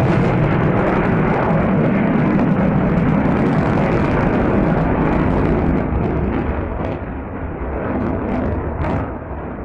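Loud jet noise from an F-22 Raptor's twin F119 afterburning turbofans as the fighter flies past, easing off about six seconds in.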